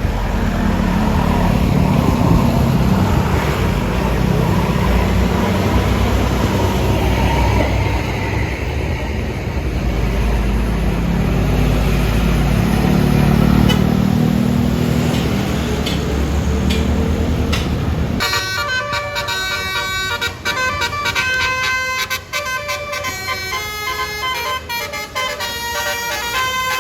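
A tour bus's diesel engine running close by, a heavy low rumble. About eighteen seconds in it gives way abruptly to a basuri musical bus horn playing a fast tune of many quick, shifting tones.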